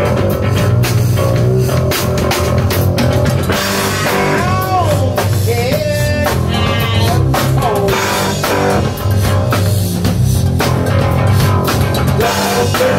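Live rock band playing: electric guitar lead lines with bent notes about four seconds in and again near the end, over electric bass and drums.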